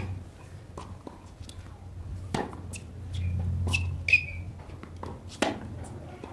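Tennis balls struck by rackets in a baseline rally on a hard court: several sharp hits a second or two apart, with short squeaks of shoes on the court between them.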